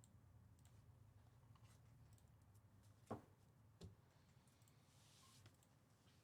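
Near silence: room tone with a low hum, broken by two faint clicks about three and four seconds in.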